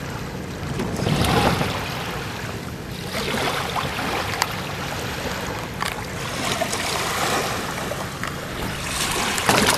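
Wind and river water sloshing around a small wooden boat, rising and falling in swells, with a few sharp knocks on the boat.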